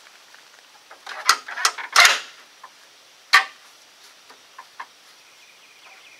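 Metal clinks and clanks of hand tools and parts being handled during truck repair work: a quick run of them about a second in, then one sharp clank a little after three seconds in.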